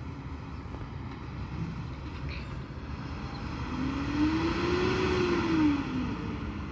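Garbage truck's diesel engine running as the truck drives along the street, revving up and easing back down about four seconds in, with a rushing sound rising and falling with it.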